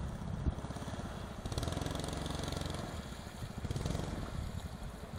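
Small engine of a jet-drive canoe running under way, its note swelling as it speeds up about a second and a half in and again near four seconds.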